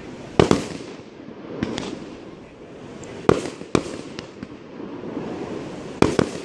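Aerial firework shells bursting: sharp bangs, a close pair about half a second in, two more around three and a half seconds, and another pair near the end.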